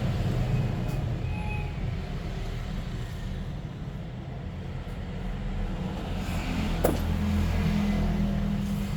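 Low engine rumble of a road vehicle, dipping midway and swelling again in the second half, with a short sharp click near the end.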